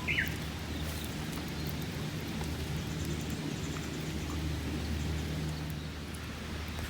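Outdoor ambience: a steady low hum under faint, sparse crackling, with one short falling bird chirp right at the start.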